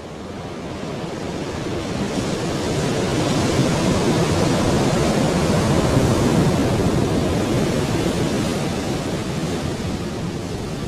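A rushing noise, surf-like, that swells to its loudest about halfway through and then slowly eases off.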